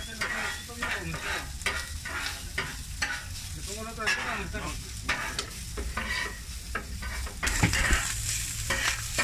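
Chopped meat frying and sizzling on a flat-top griddle while a metal spatula scrapes and turns it in quick, repeated strokes. The sizzle grows louder near the end.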